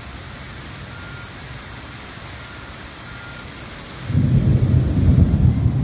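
Steady rain falling, then about four seconds in a loud, low rumble of thunder sets in and keeps rolling.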